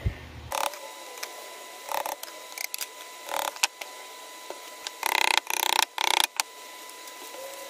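Wooden panels being handled and fitted together during a glue-up: short scraping and knocking sounds, with a cluster of three longer scrapes about five to six seconds in.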